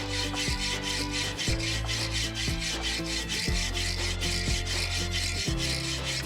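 A hand saw sawing back and forth into a firewood log, cutting the notches that mark out a mallet's handle. Background music with a steady beat plays over it.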